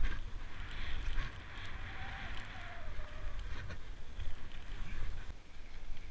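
Touring skis hissing over snow on a downhill run, loudest in the first few seconds, with wind buffeting the microphone as a low rumble and a few light clicks.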